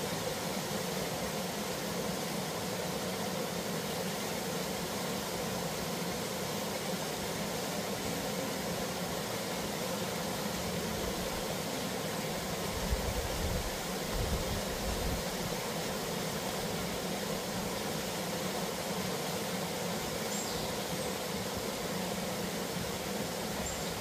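Small waterfall spilling into a rock pool: a steady rush of falling water. A brief low rumble comes about halfway through, and two faint high chirps come near the end.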